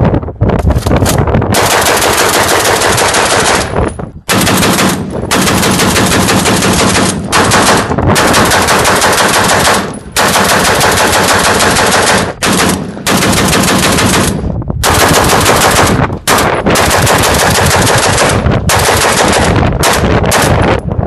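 Semi-automatic Polish Degtyaryov DPM light machine gun, 7.62×54mmR, bump-fired off its bipod. It fires a string of rapid bursts, each a second or two long, with brief pauses between.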